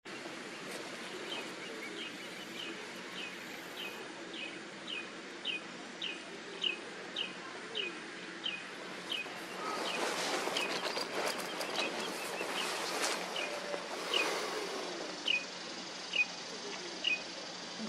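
A bird repeating a short, falling chirp about twice a second, steadily through most of the stretch, with a few seconds of rustling noise in the middle.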